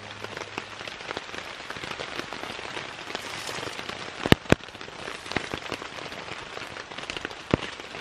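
Steady rain falling in woodland and pattering on a tarp shelter: a dense hiss of fine drop ticks. A few sharper, louder drop taps land close by, two about four seconds in and one near the end.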